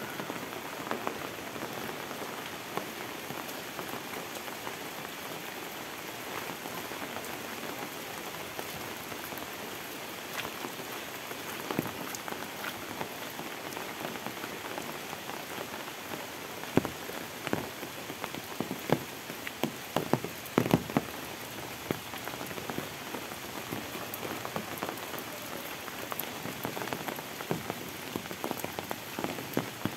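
Steady rain falling on foliage, roofs and a wet road, with scattered sharp taps close by that come thickest a little past the middle.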